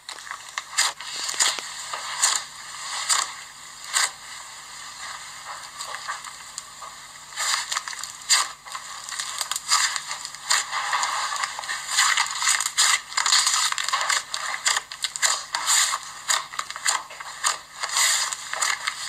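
Slime being squeezed and worked by hand: a run of irregular wet clicks, pops and crackles that comes in thicker bursts.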